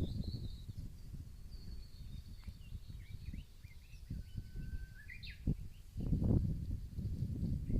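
Several wild songbirds singing: thin high whistled phrases and quick chirps, with one held note followed by a rising sweep about five seconds in. Under them runs a low rumbling noise that grows louder about six seconds in.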